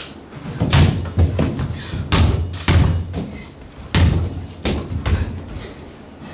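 A run of dull thuds and bumps on a stage floor, seven or eight at uneven spacing, as barefoot dancers' bodies roll, fall and land on it.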